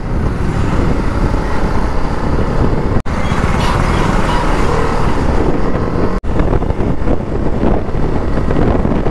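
Single-cylinder engine of a TVS Apache RR310 running as it is ridden at low speed through traffic, mixed with wind buffeting the microphone. The sound drops out for an instant twice, about three seconds and about six seconds in.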